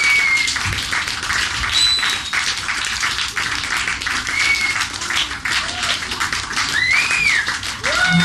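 Audience applauding steadily, with a few whistles rising and falling over the clapping.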